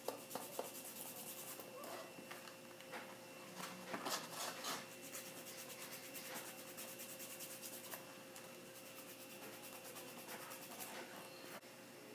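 A two-sided nail file rubbing back and forth over a fingernail in quick, short strokes. It is roughening the natural nail so the glue for a press-on nail will hold.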